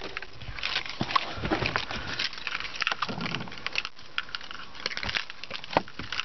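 Keys jingling on a keyring: an irregular run of small clicks and rattles with a few duller knocks.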